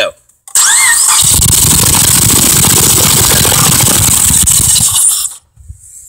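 Chrysler 2.7L DOHC 24-valve V6 started for a visual spark test, two spark plugs out of their holes. A short rising starter whine, then the engine runs loudly for about four seconds and stops suddenly when it is switched off.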